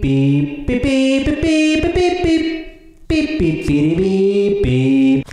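A man's voice singing without accompaniment in long, drawn-out notes, like a chanted jingle. It comes in two phrases, with a short break about three seconds in.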